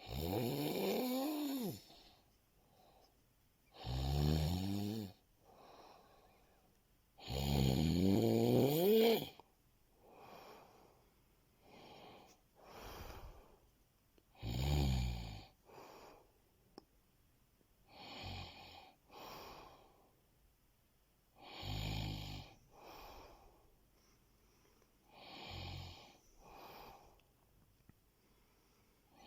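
A sleeping person snoring: five loud, long snores, several sliding up in pitch, the strongest about seven to nine seconds in, with quieter snoring breaths between them.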